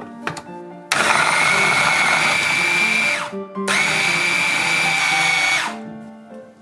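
Electric hand blender with a chopper bowl attachment running in two pulses of about two seconds each, with a steady high whine, blending bananas, milk and shredded coconut. Each pulse winds down in pitch as it is released.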